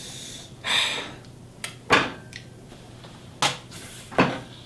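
A spoon clinking and scraping against a small glass baby-food jar as the last of it is scooped out: several sharp clinks spread over a few seconds, after a short breathy rush about a second in.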